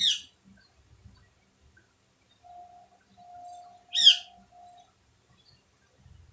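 A bird calling twice, each call a short, sharp note that slides downward, the second about four seconds after the first. A faint steady tone sounds in several short pieces just before the second call.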